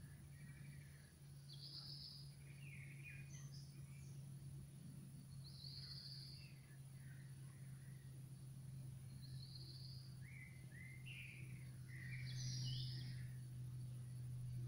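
Faint outdoor ambience: birds chirping in short scattered calls, a little busier near the end, over a steady low hum.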